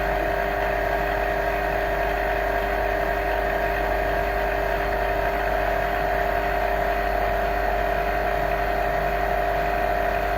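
Vacuum laminating machine running through its lamination cycle: a steady machine hum with a constant pitched whine.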